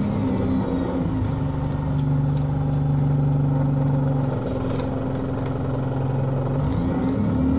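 Alexander Dennis Enviro200 single-deck bus's diesel engine running at fairly steady revs, its note shifting about a second in and again after about four and a half seconds.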